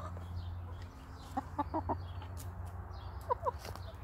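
Domestic hens clucking softly while pecking at greens. There are short clucks in two small groups, about a second and a half in and again near three and a half seconds.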